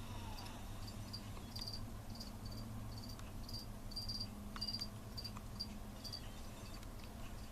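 Cricket chirping steadily, about two to three short high chirps a second, over a low steady hum.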